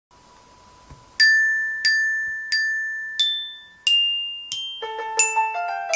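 Notes of a virtual glockenspiel played from a laptop: three repeated ringing notes starting about a second in, then a few higher notes, and near the end a quicker run of lower, overlapping notes.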